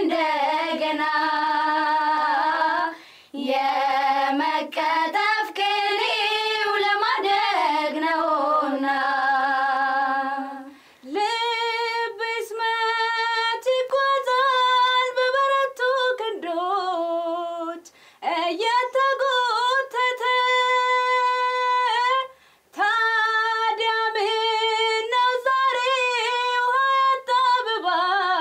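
Young women's voices singing an Amharic song unaccompanied, in long held, wavering phrases with short breaks between them.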